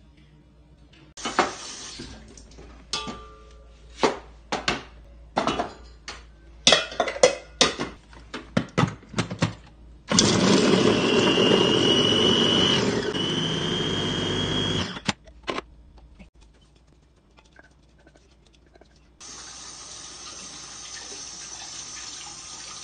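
Clicks and knocks of a stainless steel food chopper bowl being handled. Then the LINKChef electric chopper's motor runs for about five seconds with a steady high whine that steps up a little partway through. Near the end a kitchen tap runs water into the sink.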